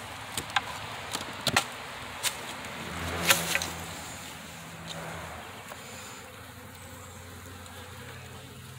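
Honeybees buzzing in a low hum around a nuc box, with several sharp knocks and scrapes as the box's lid is worked loose and lifted off. The loudest knock comes a little over three seconds in.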